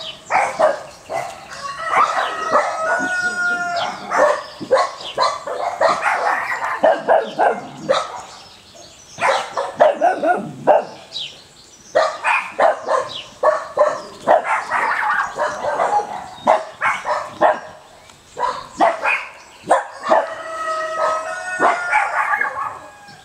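A litter of six-week-old Peruvian Hairless Dog puppies barking and yipping at each other in play, in rapid runs of short, high barks. A few drawn-out yelps come about three seconds in and again near the end, and the barking drops off briefly a few times.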